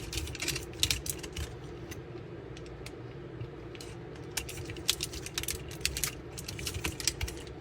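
Hard plastic parts of an action figure and its 3D-printed upgrade pieces being handled and pushed into place, giving an irregular run of light clicks and taps.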